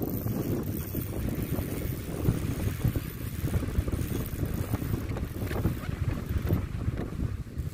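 Wind buffeting the microphone: a steady low rumble that swells and dips without a break.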